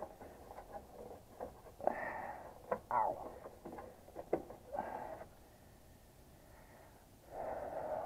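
Hand work in an opened heat pump cabinet: scattered clicks and knocks, with a few short rushes of rustling noise, the loudest about two and three seconds in and again near the end.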